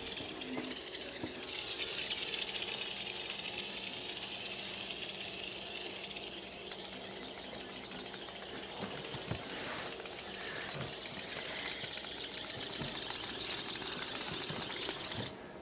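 Hexbug toy's tiny vibration motor buzzing as it skitters over the carpet, a steady hissing buzz that cuts off suddenly near the end. A single sharp click about ten seconds in.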